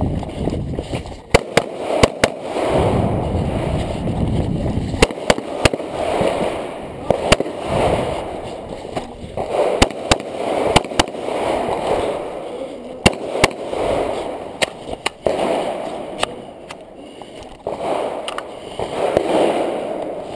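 Glock 21 .45 ACP pistol shots, fired mostly in quick pairs with short pauses between strings.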